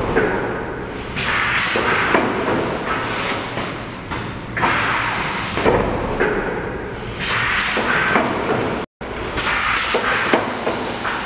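Industrial thermoforming machine cycling: repeated hisses of released compressed air and clanks of its pneumatic press, every second or two, over a steady machine hum.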